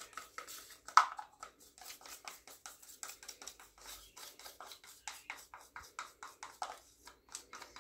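A nitrile-gloved hand handles a small plastic cup of paint while pouring: a rapid, irregular run of small clicks and rubbing, with one louder click about a second in.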